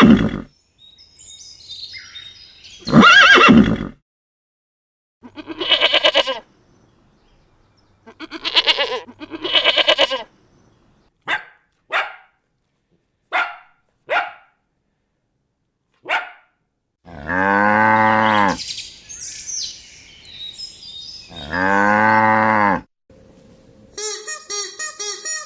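A series of different farm-animal calls, one after another with short gaps: two loud calls near the start, several shorter cries in the middle, two long, low, drawn-out calls, and a quick run of repeated clucking-like calls near the end.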